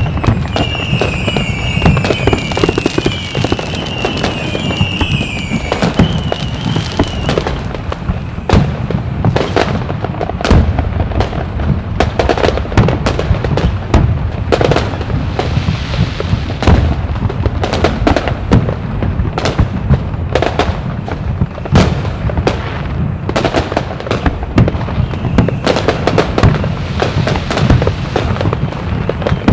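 Fireworks going off in a dense, continuous barrage of sharp bangs and crackles. A high whistle wavers up and down over the first six or seven seconds.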